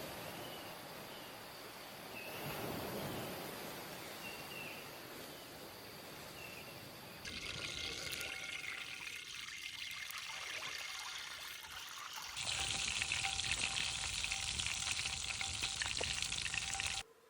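Steady rushing, hissing water noise across several cuts, with a faint high chirp repeating about once a second in the first part. It turns brighter about seven seconds in, grows louder about twelve seconds in and cuts off suddenly near the end.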